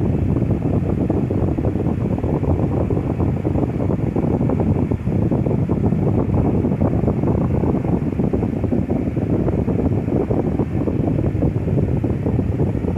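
Lasko 12-inch table fan head running on medium speed without oscillation, its blades spinning very fast and pushing a steady rush of air.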